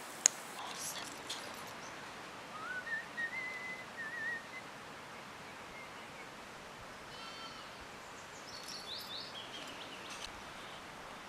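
Birds calling outdoors: a short warbling whistle, then a brief call and a quick run of high falling chirps, over a faint steady background hiss. A single sharp click comes just after the start.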